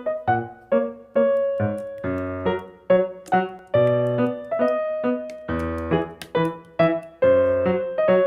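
Piano music: notes and chords struck one after another, each left to ring and fade.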